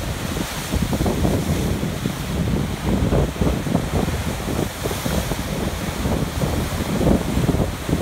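Atlantic Ocean waves surging and crashing against dark shoreline rocks, water churning and spilling back in a continuous uneven wash. Wind buffets the microphone, adding a low rumble.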